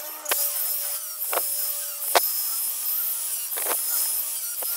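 Five sharp metallic knocks or snaps, spread unevenly, as the thin steel rods of a grill grate are worked in a nail jig on a wooden board. Under them runs a steady hum.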